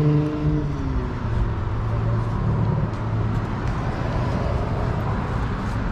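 Road traffic: a passing vehicle's engine hum drops slightly in pitch and fades just under a second in, leaving a steady low engine hum and traffic noise.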